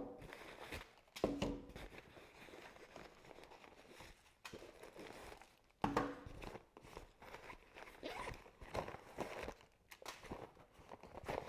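Faint rustling and crinkling of plastic-wrapped packages being pulled out of a soft fabric carry bag and set down on a wooden table, in several short bursts with quiet gaps between.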